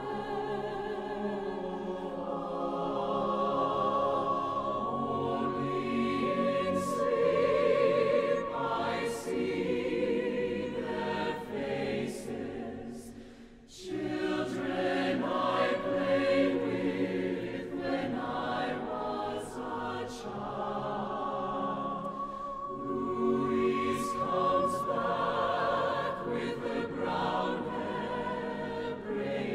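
Mixed choir singing a slow, sustained a cappella piece in long swelling phrases, with a high held note floating above the chords. The sound falls away briefly about halfway through, then the next phrase begins.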